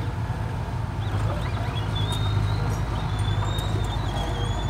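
Diesel engine of a Komatsu mini crawler dozer running steadily as the machine pushes soil. A thin, wavering high-pitched squeal comes and goes over the engine drone.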